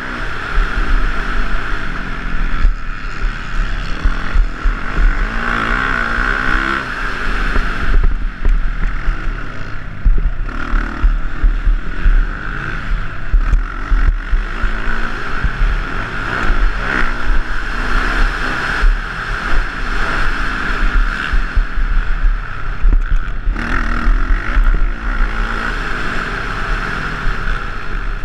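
Motocross dirt bike engine at race speed, its revs rising and falling over and over, heard from a helmet camera with heavy wind rumble on the microphone.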